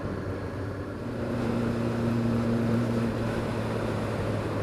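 Triumph Speed Four's inline-four engine running steadily under way, getting louder about a second in as it pulls and then holding an even note.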